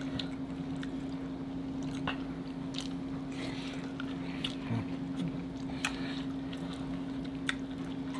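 Wet chewing, smacking and squishing as sauce-covered seafood and corn on the cob are bitten and eaten, with short sharp clicks now and then. A steady low hum runs underneath.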